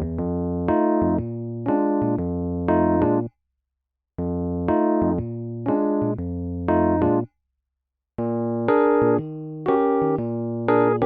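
Background music played on an electric piano: short phrases of chords and melody that break off into complete silence twice, for about a second each time.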